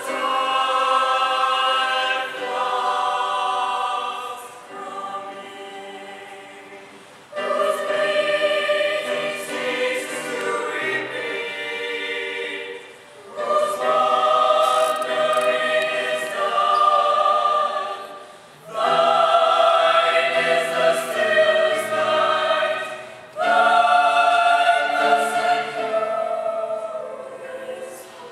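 Mixed high-school choir singing held chords in parts, in five phrases that each start together and taper off at the end.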